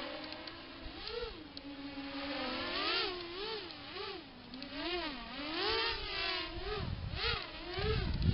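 FPV miniquad's brushless motors and propellers whining in flight, the pitch swinging up and down about twice a second as the throttle is worked. A low rumble comes in near the end.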